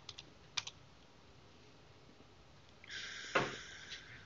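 Computer keyboard keystrokes: a couple of light key clicks near the start, then a louder keystroke about three and a half seconds in, inside a brief hiss.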